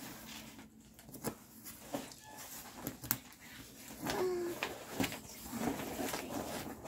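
Cloth rustling and soft knocks close to the microphone, with a brief faint voice-like sound about four seconds in.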